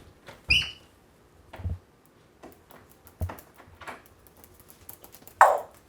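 African grey parrot giving a short high chirp about half a second in, among scattered soft knocks and handling noises, with a louder rustle near the end.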